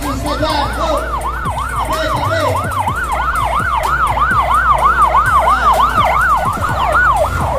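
Motorcycle escort's siren on a fast yelp, its pitch sweeping up and down about four times a second and growing louder as it comes closer.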